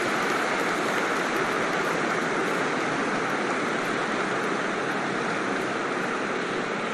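Steady applause, many hands clapping at once in a dense wash, easing slightly toward the end.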